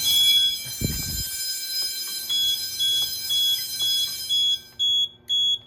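Fire alarm sounding at the control panel: a loud high-pitched alarm tone comes on suddenly, with a dull thump about a second in, and fades out after about four seconds. Under it the panel's buzzer starts beeping about twice a second, the beeps growing longer and further apart near the end, signalling a supervisory condition on the panel.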